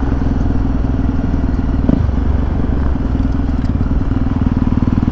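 Motorcycle engine running steadily under way, a fast, even rumble of firing pulses, with a single thump about two seconds in.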